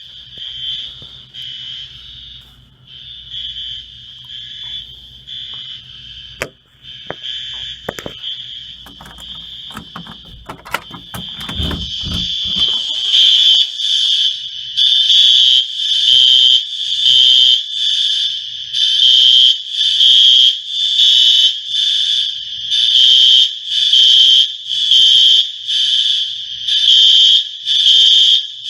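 Apartment building fire alarm sounding a high-pitched pulsing tone. It is fainter at first, with a few knocks and clicks, then about halfway through it gets much louder and pulses about once a second.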